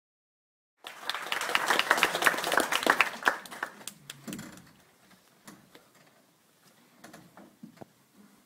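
Audience applauding, starting suddenly about a second in and dying away after about three seconds into a few scattered knocks.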